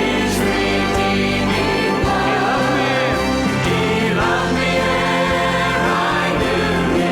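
Church worship music: a choir singing a hymn with instrumental accompaniment, holding sustained chords.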